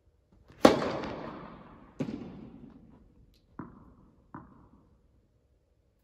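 Tennis serve: the racket strikes the ball with a loud, sharp pop that echoes through the large indoor hall, followed about a second and a half later by a second sharp smack as the ball hits far away. Then two softer tennis ball bounces, also echoing.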